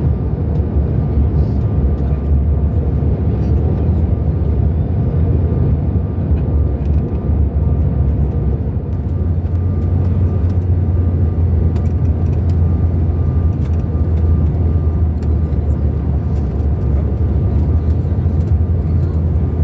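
Steady cabin noise inside a CRJ-900 regional jet: a loud, even low rumble from its rear-mounted turbofan engines and airflow, with a thin steady tone above it.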